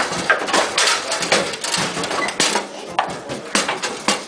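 Bonzini foosball table in play: a rapid, irregular run of sharp clacks and knocks as the ball is struck by the figures, bounces off the table walls and the rods are jerked against the bumpers.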